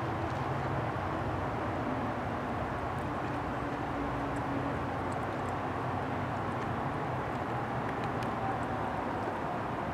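Steady low background hum and hiss with a faint held tone, like a distant machine or traffic, and a few faint clicks of a cat chewing at a metal food bowl.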